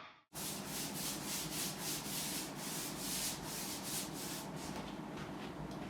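Rhythmic scratchy rubbing strokes on a surface, about three a second, as in hand sanding or brushing. The strokes weaken somewhat in the last second or so.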